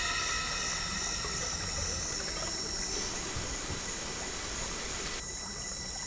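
Soft, steady background hiss of ambience, with faint steady high tones running through it.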